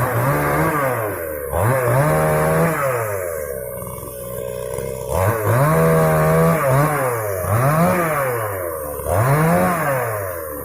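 Moto Yama two-stroke chainsaw cutting dry wood, revved up to full throttle and let back down about five times, its pitch rising, holding high and dropping away with each burst.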